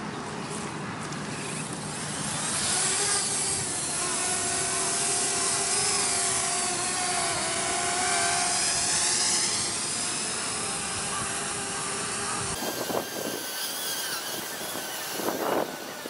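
Parrot Bebop quadcopter drone's rotors whining in flight, a steady multi-toned buzz whose pitch bends as the drone moves. Near the end the whine gives way to a few gusty bursts of noise.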